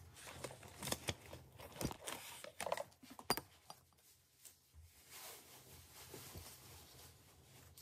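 Faint, irregular clicks and taps from typing on an Asus Vivobook Go 15 laptop's keyboard and touchpad, mostly in the first few seconds, over a low steady hum.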